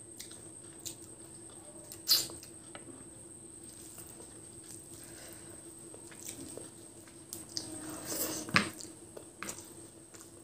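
Eating by hand, close-miked: chewing, then fingers mashing rice into chicken curry gravy, with small wet clicks and two sharper clicks, about two seconds in and again near eight and a half seconds. A faint steady hum runs underneath.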